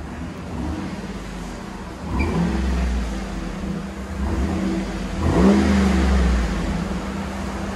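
2012 Cadillac Escalade ESV's 6.2-litre V8 on its stock exhaust, before the Flowmaster Flow FX muffler: idling, then revved twice, about two seconds in and again about five seconds in, each rev held briefly and dropping back toward idle.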